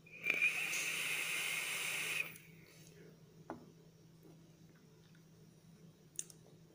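An electronic cigarette being drawn on: a steady hiss of air pulled through the atomizer for about two seconds, then a faint click.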